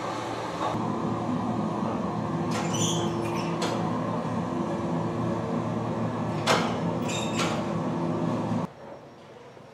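Steady hum of shipboard laundry machinery, with two spells of steam hissing from a garment press. The hum cuts off abruptly near the end.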